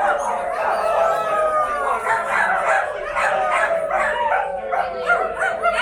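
Many voices howling and yipping like dogs at once, overlapping long calls that slide down in pitch.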